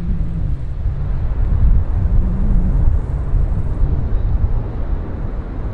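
Low, steady rumble of a distant jet airliner on the runway, mixed with wind buffeting the microphone.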